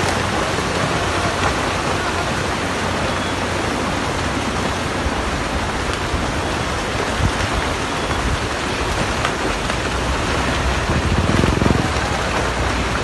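Heavy monsoon rain pouring down steadily, a dense even hiss. A brief louder low rumble swells and fades about eleven seconds in.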